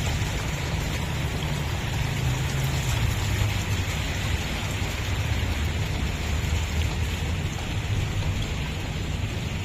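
Wind buffeting the microphone in a steady low rumble, over a continuous even hiss.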